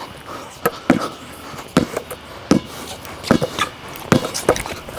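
Basketball dribbled on a concrete driveway: a steady series of sharp bounces, roughly one every three-quarters of a second.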